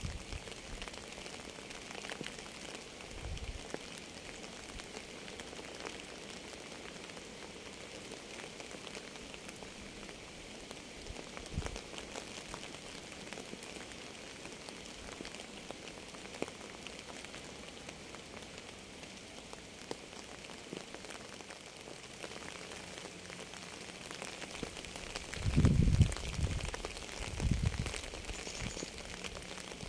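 Steady rain falling on a surface, with many separate drop ticks. Occasional short low thumps, the loudest a cluster of them near the end.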